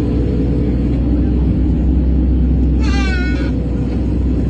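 Excavator's diesel engine running steadily, with one short, high, slightly wavering cry about three seconds in.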